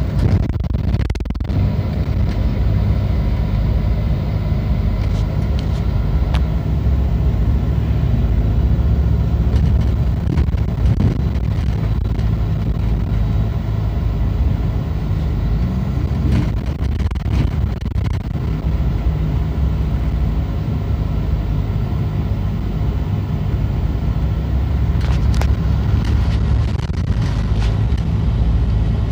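MCI D4505 motorcoach's diesel engine and road noise heard from inside the passenger cabin as the coach drives through town: a steady low drone with small shifts in pitch as it pulls away.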